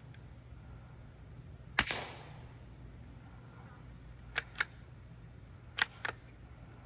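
Savage Mk II bolt-action .22 LR rifle firing one suppressed shot of CCI standard-velocity ammunition through a Dead Air Mask suppressor, a sharp crack with a short fading tail. Then two pairs of metallic clicks as the bolt is worked to eject and chamber the next round.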